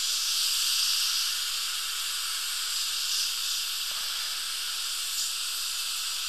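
Steady high hiss of dental air and water spray and suction while a high-speed handpiece's diamond bur cuts through the contact area between two molars.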